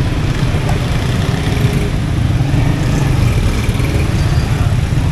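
Slow, congested street traffic: engines of motorcycles, auto-rickshaws and a van running at low speed, a steady low rumble.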